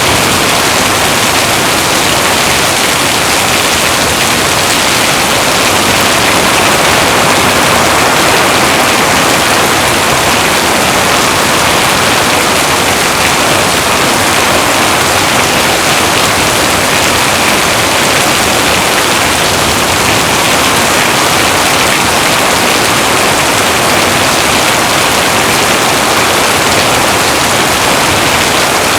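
Heavy rain falling, a dense, steady hiss without a break.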